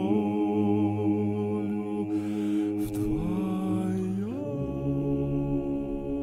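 Slow vocal music: long held notes sung as a chord, sliding up about four seconds in to a new held chord. A short hiss comes in between.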